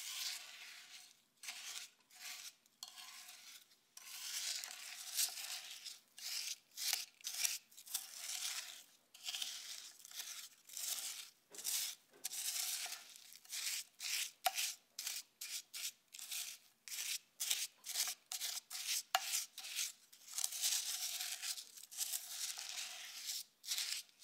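Wooden spoon stirring biscuit crumbs and melted butter in a glass bowl: a long run of scraping strokes, about two a second through the middle, with a few longer sweeps near the end.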